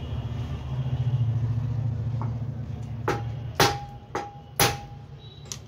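Four sharp metal-on-metal taps about half a second apart, each ringing briefly, as a metal part of a 14-inch cut-off machine is knocked into its seat; a fainter tap follows. A low steady hum under the first half fades away.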